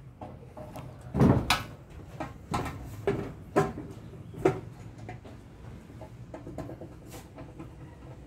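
Handling knocks and clicks from the metal parts of a partly dismantled gas water heater as hands work on it: a loud clatter a little over a second in, four or five single knocks over the next few seconds, then lighter ticks.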